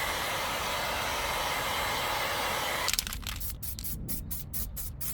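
Aerosol spray-paint can hissing steadily, cutting off about three seconds in. A run of short, rapid spray puffs follows as areas of the fresh coat are touched up.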